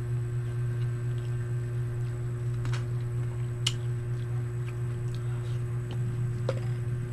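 Soft chewing of a coffee-dunked biscuit over a steady low hum, with a few sharp clicks of a metal spoon against a ceramic mug.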